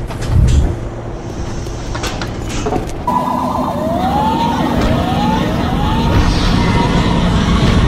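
A low mechanical rumble with a loud thump about half a second in. From about three seconds a siren wails over it, its pitch sweeping upward again and again.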